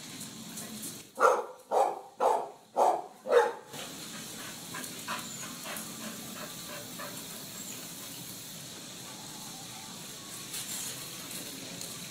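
A terrier barking five times in quick succession, about two barks a second.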